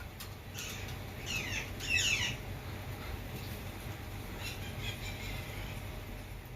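A bird squawking: three short calls falling in pitch in the first two seconds or so, then fainter calls around five seconds in.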